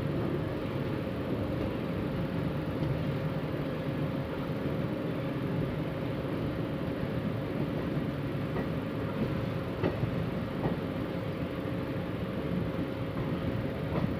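Passenger train running on the track, heard from the coach's open window: a steady rumble of wheels on rails with a steady tone running through it. A few clicks come over rail joints in the second half.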